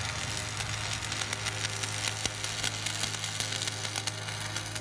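Electric arc welding on a rusty steel plate: the arc crackles and sizzles steadily over a low, even hum.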